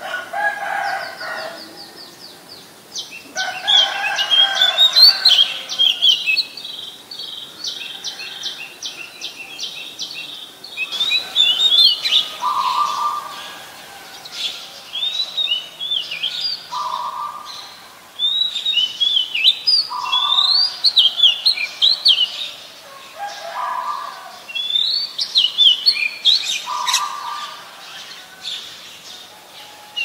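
Oriental magpie-robin singing: repeated phrases of clear, quick whistled notes that slide up and down, with short pauses between phrases.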